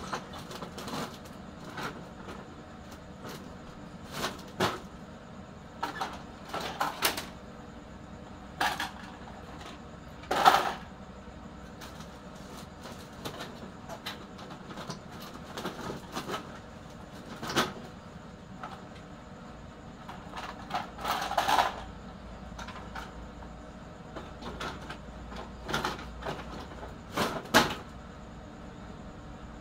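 Scrap computer motherboards being packed by hand into a woven plastic sack: irregular clattering knocks as the circuit boards drop and strike one another, a few seconds apart, the loudest about ten seconds in.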